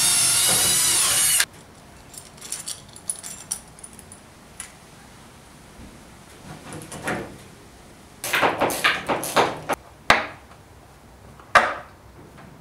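Cordless drill whirring at high speed as it bores into a pine panel; it stops about a second and a half in, its pitch dipping slightly just before. Then come small metal clicks and rattles of screws and latch hardware being handled, with a couple of sharp knocks.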